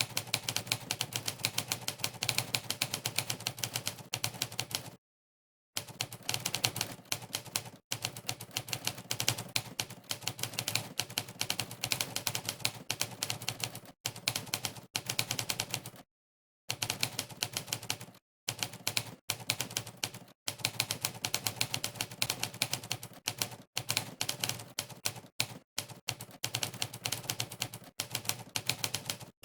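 Monkeytype's sampled typewriter keystroke sound, played once for each key pressed during fast typing, so it comes as a rapid clatter of clicks. It stops for short pauses about five seconds in and about sixteen seconds in, and there are a few briefer breaks.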